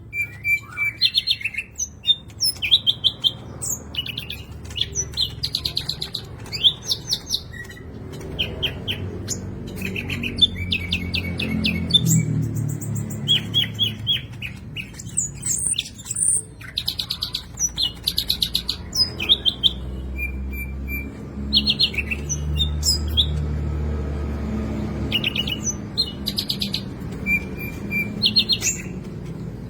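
Greater green leafbird (cucak ijo) singing continuously: a fast run of short rapid trills and sharp repeated notes, filled with mimicked common nightingale phrases. A low steady rumble lies underneath.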